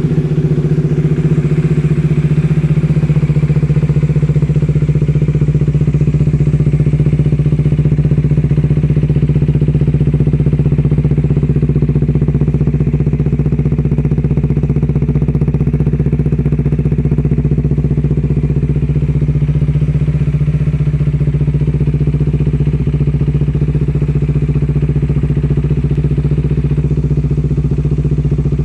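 Bajaj Dominar 400's single-cylinder engine idling steadily through a Two Brothers Racing aftermarket exhaust, loud and even with no revving.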